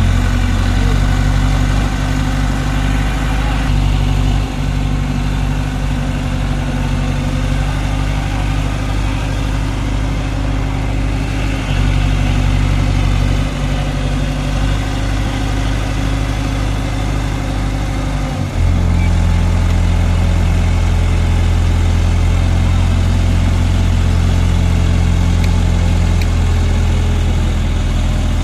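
Diesel engine of an ACE 12XW mobile crane running steadily. About two-thirds of the way through it steps up to a louder, heavier note and holds there.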